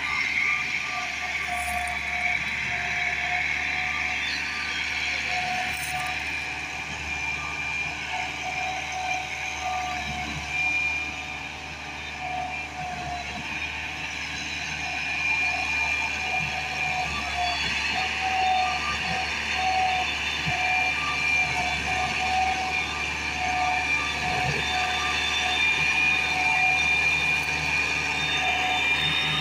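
Massey Ferguson 375 tractor's Perkins diesel engine running steadily, with a high whine running through it, a little louder in the second half.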